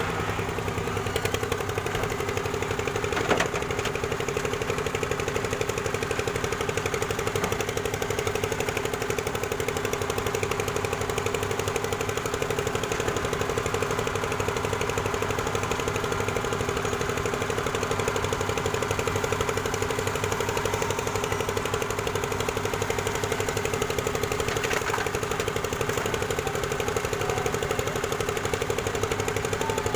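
Excavator's diesel engine running steadily while it works, with a single sharp clank about three seconds in.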